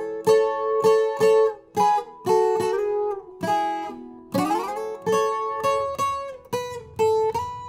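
Viola caipira, the ten-string Brazilian folk guitar, plucked in a melody phrase on two strings at once, a duet of two voices. About four seconds in, a slide carries the notes upward.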